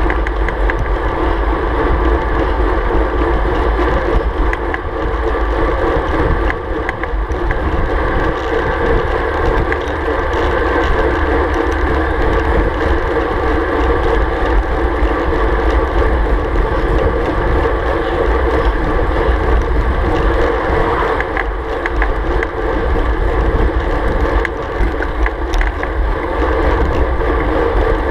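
Steady wind rush buffeting the microphone of a handlebar-mounted action camera on a road bike at about 40 km/h, with a strong low rumble.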